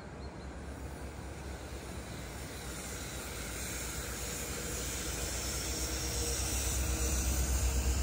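Low rumble and hiss of a passing vehicle, growing steadily louder as it approaches.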